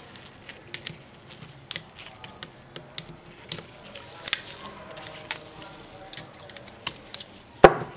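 Screwdriver tip prying the wire retaining clip of the oil seal out of a scooter fork leg: irregular light metal clicks and ticks as steel catches and scrapes on the clip and tube, with one sharper click near the end.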